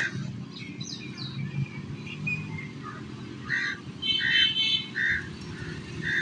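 Birds chirping in short repeated calls, with a brief fast trill about four seconds in, over a low steady rumble.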